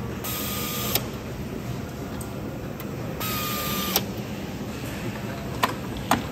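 Pneumatic screwdriver driving screws into an oven door's handle: two short runs of air hiss and motor whine, each ending in a sharp click as the screw seats, followed by two more sharp clicks near the end, over a steady factory hum.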